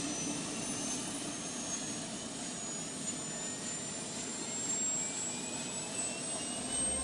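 Steady aircraft engine noise with a high whine slowly rising in pitch.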